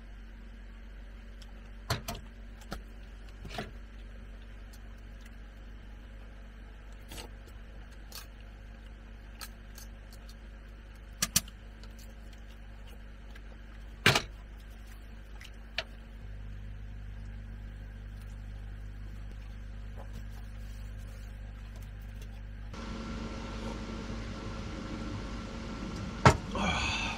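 Scattered clicks and knocks of a metal mug and small metal cookware being handled, over a steady low hum. A louder knock comes near the end.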